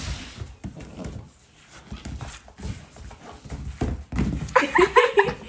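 A dog making several short, high-pitched cries near the end, over irregular thumping and shuffling.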